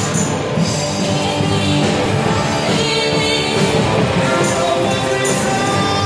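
A live rock band playing, with drums and keyboard, while a male singer sings into a hand-held microphone through the PA.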